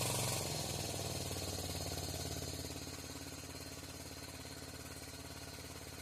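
1976 John Deere 300 riding mower's single-cylinder Kohler engine running just after a hard cold start, its rapid firing easing down to a steadier, quieter idle over the first few seconds. The start was hard because the engine had flooded itself in the chill, as the owner thinks.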